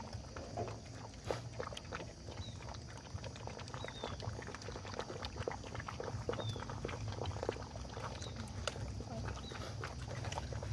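Several puppies lapping and slurping milk from a plastic feeding tray: a rapid, irregular run of wet clicks and laps.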